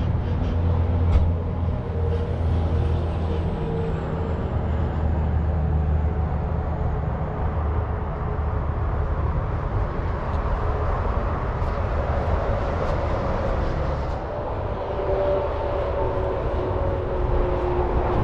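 Large diesel truck engine idling steadily: a low, even rumble with a faint hum above it.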